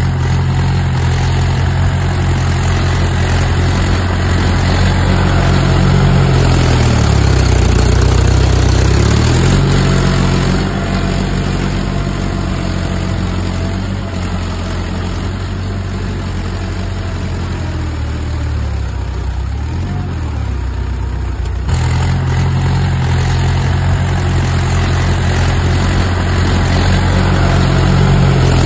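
Small tractor engine running steadily, its pitch dipping briefly a few times as it is worked, with an abrupt change in the sound about three-quarters of the way through.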